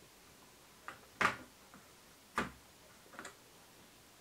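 Four light clicks and taps from a ruler and felt-tip marker being handled and set down on paper, the loudest a little over a second in.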